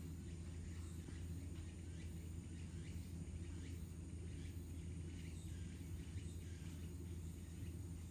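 Outdoor background: a steady low hum with faint, scattered high chirps over it. The swimming polar bear makes no clear sound of its own.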